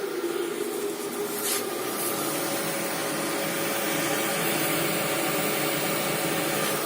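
Vents OV 2E 200 axial fan running, a steady rush of air with a faint hum, with two light clicks about a second and a half in.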